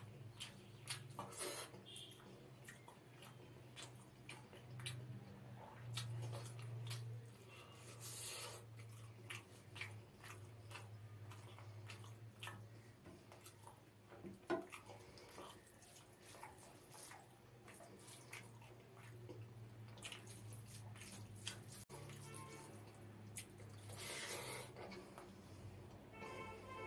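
Close-miked wet eating sounds: fingers squishing rice with hilsa fish and mustard gravy, and chewing with many small lip smacks and clicks, over a faint low hum.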